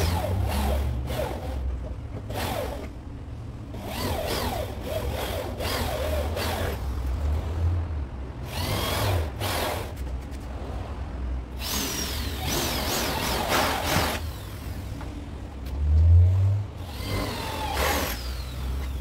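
Sheet metal on a car body scraping and squealing in short bouts as it is handled and worked by hand, with scattered knocks, over a low rumble that swells loudly near the end.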